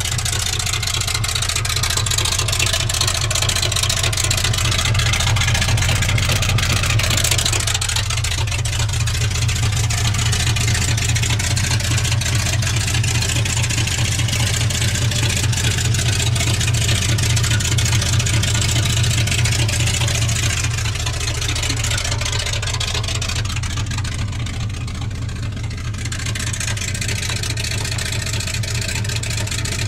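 Buick 225 Dauntless V6 in a 1948 Willys CJ-2A Jeep, idling steadily through a newly installed dual straight-pipe exhaust, with a deep steady note.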